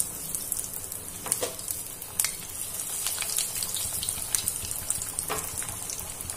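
Cheese bread rolls deep-frying in hot oil, freshly dropped in: a steady sizzle with scattered sharp pops and crackles.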